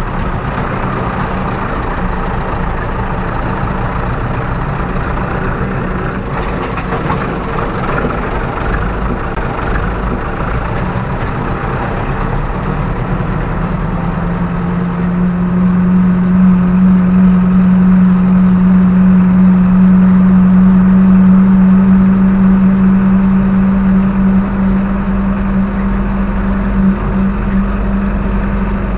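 Zetor 6745 tractor's four-cylinder diesel engine running steadily while hauling manure. It gets louder and works harder about halfway through, then eases off a little near the end.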